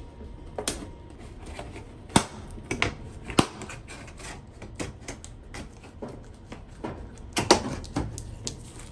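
Irregular clicks and light knocks of plastic and metal parts being handled while a washing machine's rear cover and screws are worked loose, with a few sharper taps about two, three and seven and a half seconds in.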